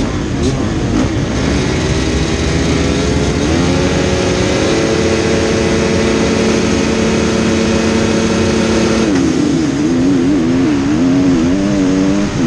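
Motocross bike engines at the start gate, held at steady high revs for several seconds; about nine seconds in the pitch starts swinging up and down as the bikes launch off the line and shift up through the gears.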